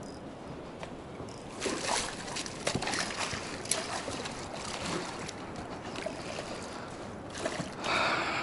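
Water splashing and sloshing close by, with scattered clicks and crackles of handling, starting about a second and a half in.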